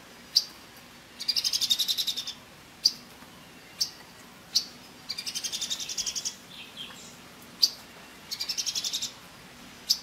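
Orange-bellied leafbird calling: sharp single high notes between three rapid trills of about a second each.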